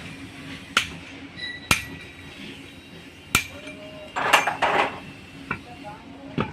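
Hammer blows on the steel parts of a truck propeller shaft's universal joint while a new cross and bearings go in: about five sharp, irregularly spaced strikes, some with a short metallic ring. A brief rasping scrape comes in twice just past the middle.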